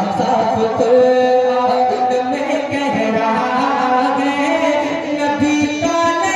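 A man singing a naat (an Urdu devotional poem in praise of the Prophet) in a melodic, unaccompanied style, holding long notes into a stage microphone.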